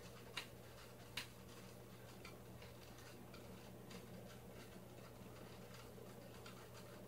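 Faint steady low hum with two sharp clicks in the first second or so, then fainter scattered ticks.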